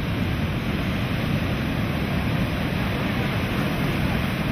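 Heavy hurricane surf breaking, under a steady low rumble of strong wind buffeting the microphone.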